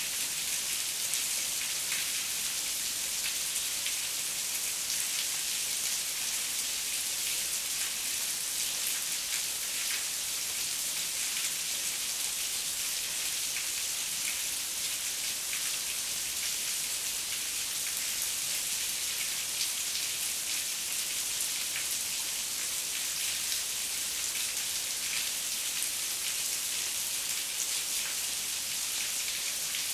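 Heavy rain falling steadily: an even hiss scattered with many small drop ticks.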